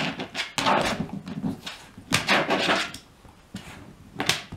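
Shiba Inu sniffing and pawing at a person's closed fists resting on a box, nosing out which hand hides a treat, heard as a few short scuffling, snuffling noises.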